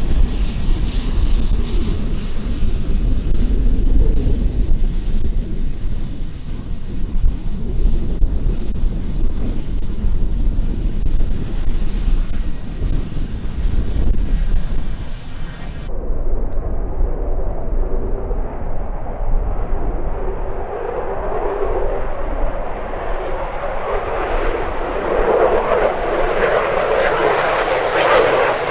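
Airliner engine noise mixed with wind rumbling on the microphone. After a sudden change about halfway through, an aircraft's engine noise grows steadily louder toward the end as it approaches.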